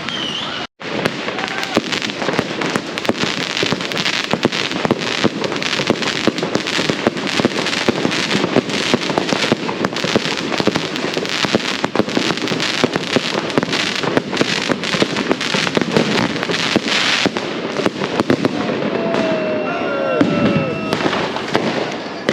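A dense, continuous barrage of firecrackers going off in rapid succession, many sharp bangs a second, with a momentary break under a second in. A few gliding tones rise and fall over the bangs near the end.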